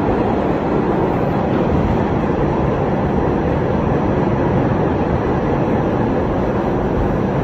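New York City subway car (B train) running at speed, heard from inside the car: a steady, loud noise of wheels on rails and the car body, with no change in pace.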